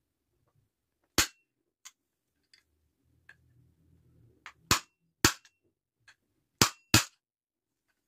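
Hammer blows on a punch held against the central hub of a vacuum cleaner motor's fan, driving the motor shaft out of the fan. Five sharp metallic strikes, one about a second in and then two quick pairs near the end, with fainter taps between them and a short ring after some blows.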